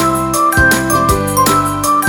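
Background music with a steady beat and bright tinkling high notes.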